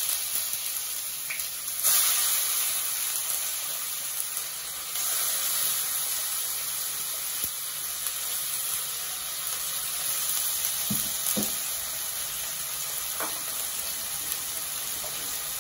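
Chopped onion and tomato paste frying in hot mustard oil in an iron kadhai, giving a steady sizzle. About eleven seconds in there are a couple of short knocks.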